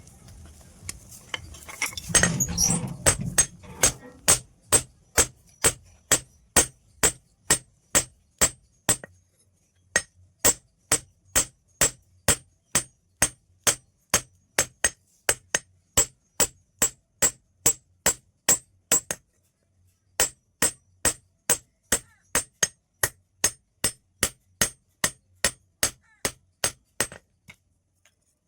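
Hammer blows on scissor steel on an anvil, forging it into a knife. The strikes come steadily, a little over two a second, each with a bright metallic ring, and pause briefly twice.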